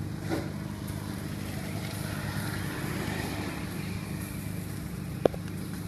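Steady low motor hum, with a single sharp click about five seconds in.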